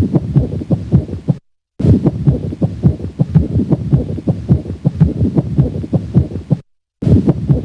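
Stethoscope recording of heart sounds at the cardiac apex with a pericardial friction rub: dense, repeated short rubbing strokes with the heartbeat, the classic sign of pericarditis. The recording drops out to silence briefly twice, about a second and a half in and near the end.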